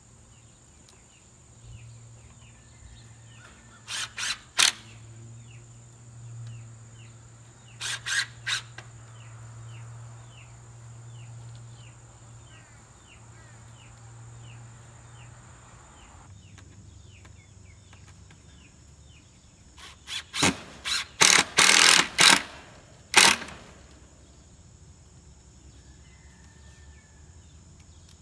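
Small high chirps repeating about twice a second throughout, broken by sharp clicks: two about four seconds in, three about eight seconds in, and a quick run of them between about twenty and twenty-three seconds.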